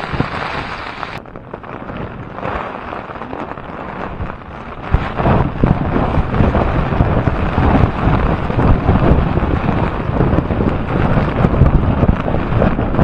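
Storm wind and rain beating on a camping tent, the fabric flapping and rattling, with heavy wind buffeting on the microphone. It gets louder about five seconds in.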